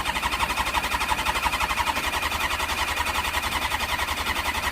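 1997 Kawasaki ZX6R's inline-four being cranked over by its electric starter on a jump from a car battery, a fast, even pulsing that goes on for several seconds without the engine catching.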